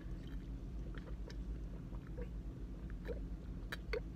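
Someone drinking soda from a plastic bottle: a few faint swallows from about two seconds in, with small clicks of the bottle, over a low steady hum.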